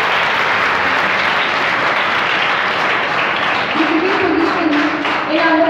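Audience applauding, a dense steady clapping. A voice starts speaking about four seconds in, over the applause.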